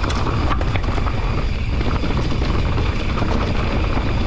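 Mountain bike rolling over dry dirt and loose stones at speed: a steady low rumble of wind on the microphone and tyre noise, with a few sharp clicks and rattles in the first half-second.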